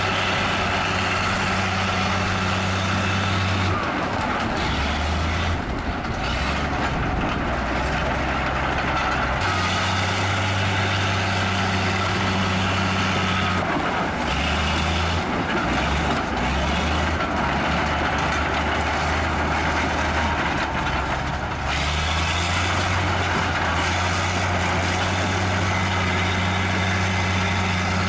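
Bulldozer's diesel engine working steadily under a dense noisy clatter, its low engine note dropping and picking up again several times.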